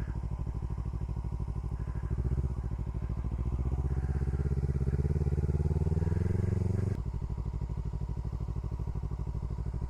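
Kawasaki Versys-X motorcycle's parallel-twin engine running at a low steady speed, then picking up about two seconds in, its note rising slowly for about five seconds before dropping back to the low steady running.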